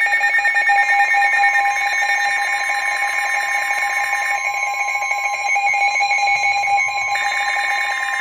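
Emergency Alert System attention signal: the two-tone alert (853 and 960 Hz sounded together), held steadily. It signals that an emergency warning message is about to follow.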